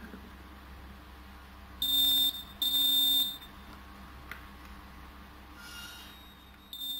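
Small electronic buzzer of a homemade continuity tester sounding a steady high beep twice, each about half a second long, about two seconds in, as the probe lead closes the circuit. Fainter short beeps follow near the end.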